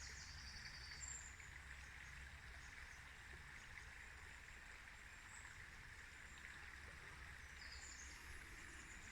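Near silence: faint steady background ambience with a few faint, brief high bird chirps.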